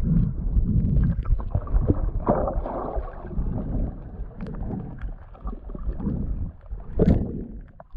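Wind buffeting and choppy water slapping around a small aluminium boat, an uneven low rumble with a few light clicks and one sharp knock about seven seconds in.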